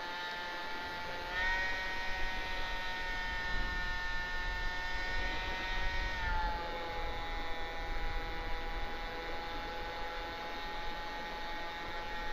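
Electric motor and propeller of a radio-controlled model Cessna TTX whining in flight. The whine rises in pitch and gets louder about a second in, holds steady, then drops a little around six seconds in before climbing again near the end.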